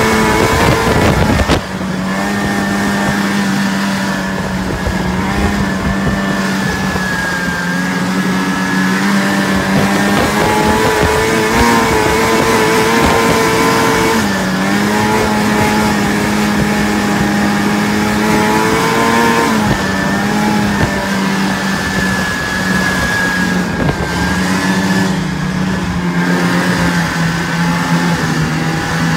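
Snowmobile engine running steadily under way on a trail, its pitch rising a little and dropping back a couple of times. A loud rushing noise in the first second and a half cuts off sharply.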